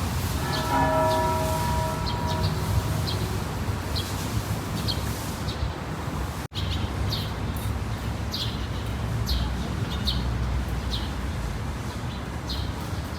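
A single stroke of a church bell about half a second in, its tone dying away over a few seconds, while a small bird chirps again and again over a low, steady background rumble.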